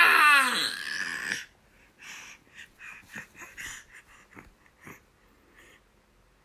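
Young baby letting out a loud high-pitched squeal that slides down in pitch, then a run of short breathy snorts and grunts.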